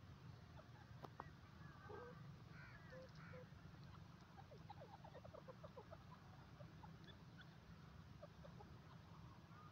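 Faint, soft bird chirps and twitters, a scatter of short notes thickest around the middle, over a steady low rumble.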